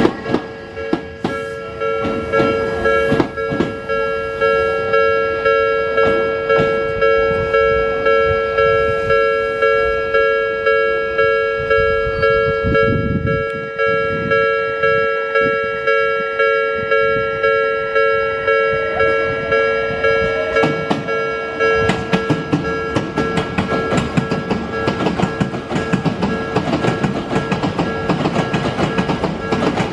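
Japanese level-crossing warning bell ringing steadily at about one and a half strikes a second. Under it, the wheels of an Odakyu 3000-series train click over rail joints. The clicking turns dense and continuous about 22 seconds in as a train runs over the crossing.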